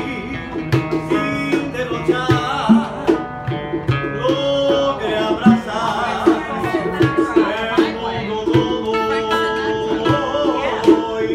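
Live acoustic band music: two nylon-string acoustic guitars played together with a cajón keeping the beat and a man singing the melody.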